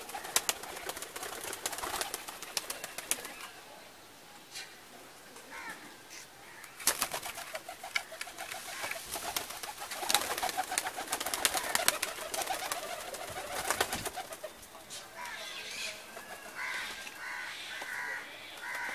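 Domestic pigeons cooing, with flurries of sharp clicks and rustling at the start and again in the middle.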